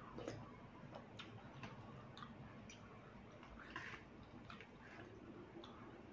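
Faint, scattered small clicks of eating: chewing, and a metal fork and spoon lifting wet rice noodles from the curry. Slightly louder click a little before the four-second mark.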